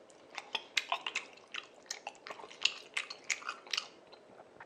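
A man chewing a mouthful of spicy tteokbokki rice cakes into a clip-on chest microphone. The chewing gives an irregular run of short mouth clicks and smacks, a few each second.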